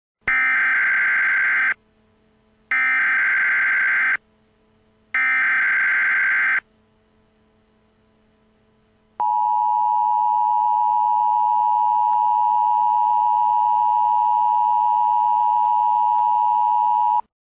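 Emergency Alert System tones: three bursts of SAME digital data, each about a second and a half long, then after a short pause the steady two-tone EAS attention signal, held for about eight seconds before it cuts off.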